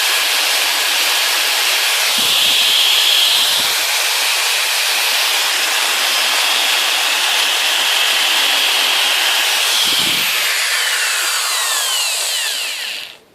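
Electric drill running steadily under load as its bit bores into the metal luggage rack, starting a hole at its marked centre. Near the end the motor's whine falls and the drill stops abruptly.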